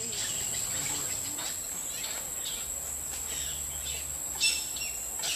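A steady, high-pitched insect chorus, with one short, sharp sound about four and a half seconds in.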